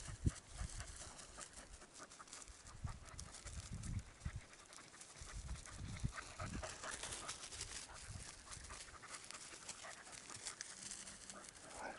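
A hunting dog panting as it works the field, with faint crackling and rustling throughout.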